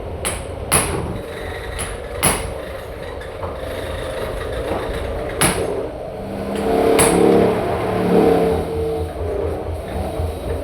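A vehicle engine running with a steady low rumble, swelling louder with a pitched tone about seven seconds in, and a few sharp knocks along the way.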